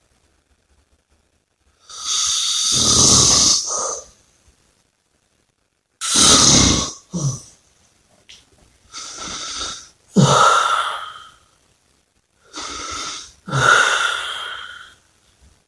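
A person snoring and breathing heavily: about four breaths after a short silence, each a breathy draw and release with a low snoring buzz, with short pauses between them.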